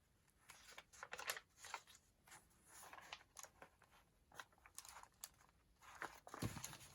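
Faint, irregular rustling and crinkling of paper sheets being handled, with a soft knock near the end.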